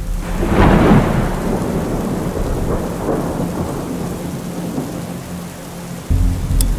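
A thunderclap swelling about half a second in and rolling away slowly over steady rain; a low drone comes back in near the end.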